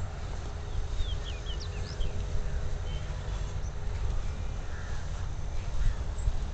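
Wind rumbling on the phone's microphone outdoors, with a few short bird chirps about a second or two in.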